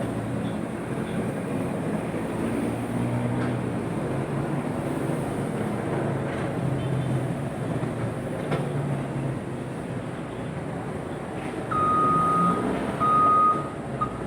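Backhoe engine running, its pitch shifting up and down with the work, with a few faint knocks. Near the end two long high-pitched beeps sound, followed by a short blip.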